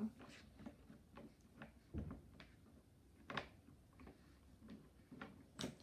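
Felt-tip marker drawing on paper: faint, irregular ticks and scratches of the tip against the sheet, with a soft knock about two seconds in.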